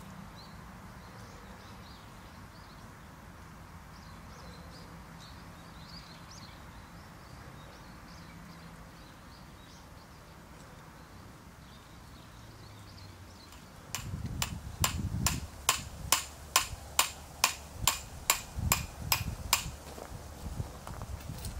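Quiet outdoor background with faint bird chirps, then about 14 s in a quick, even run of sharp metal hammer strikes, about three a second: a tent peg being driven into gravel ground, followed by a few heavier thuds near the end.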